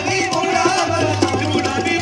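Live Rajasthani folk music: a barrel drum beaten in a quick, steady rhythm over sustained harmonium tones.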